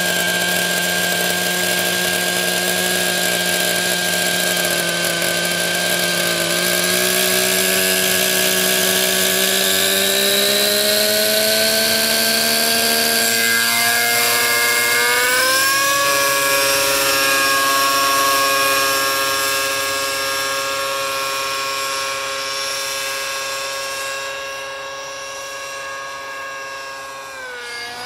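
Redline .53 two-stroke glow engine with a Redline Hi Flow tuned pipe running in a T-Rex 600N RC helicopter. Its note climbs steadily in pitch over several seconds around lift-off, then holds and grows fainter as the helicopter climbs away. The pitch drops sharply near the end.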